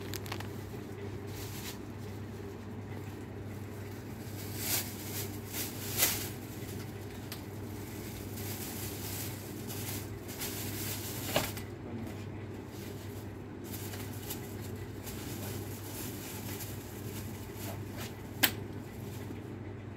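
Plastic bags and cellophane wrap rustling and crinkling as sweets are bagged by hand, with a few brief louder rustles and a sharp click about eighteen seconds in, over a steady low hum.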